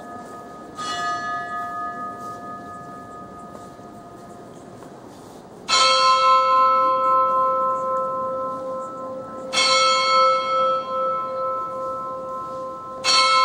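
The cathedral clock's bell striking slowly, with long ringing decays. A fainter, higher-pitched stroke comes about a second in, then three loud strokes of a lower bell, about four seconds apart, each still ringing when the next lands.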